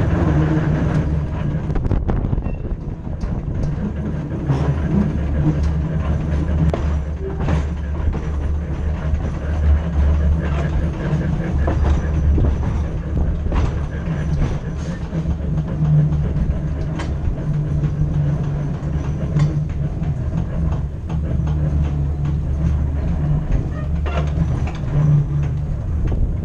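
Vintage Glasgow Corporation Tramways electric tram running along its street track: a steady low rumble and hum, with occasional clicks and knocks.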